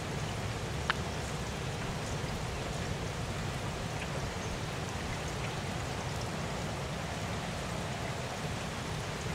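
Steady rain hiss over a low rumble of wind on the microphone, with a single sharp tick about a second in.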